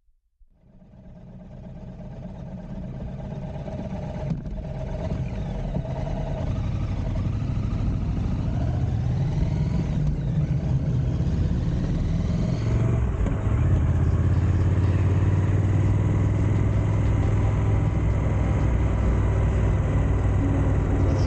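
Triumph Scrambler 1200's parallel-twin engine under way, fading in over the first couple of seconds. The engine note rises and falls through the first half, then holds a steadier drone.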